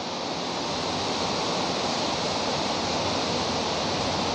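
A steady rushing noise, even and unbroken, that swells slightly in the first second.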